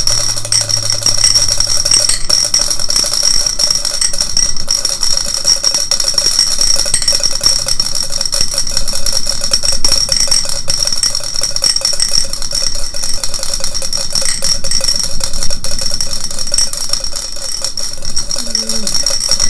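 A 10-sided die shaken hard inside a clear drinking cup held closed by hand: a fast, continuous rattle of the die striking the cup walls, with a steady ringing tone from the cup. It stops abruptly at the very end.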